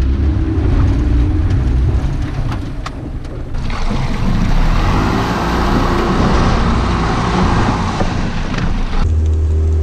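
Yamaha outboard motor running as the pontoon boat pushes through broken ice, with ice plates clicking and knocking against the hull. From about three and a half seconds in, the propeller wash churns the icy water into a loud rushing, and near the end the sound cuts suddenly to a steady low engine drone.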